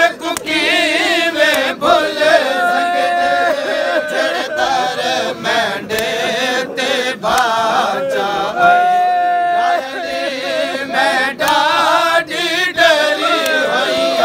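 Men's voices chanting a noha, a Shia lament, without instruments: one lead voice sings the verses in a wavering melody with long held notes, and other men's voices join in.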